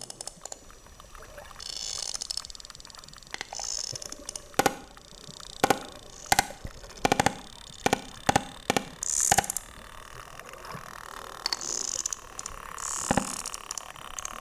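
Series of sharp underwater clicks, about one a second through the middle of the stretch, over a hissy background: typical of sperm whale echolocation clicks on a hydrophone.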